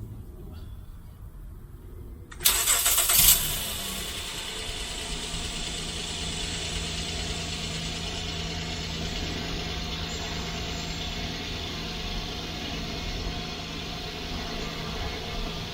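A 2015 Honda Odyssey's 3.5-litre V6 is started about two seconds in: a loud burst of cranking for about a second as it catches. It then settles into a steady idle after a tune-up with new spark plugs and ignition coils meant to cure a misfire on cylinder 3.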